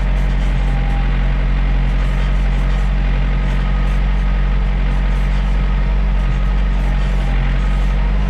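John Deere 970 compact tractor's diesel engine running steadily at an even speed.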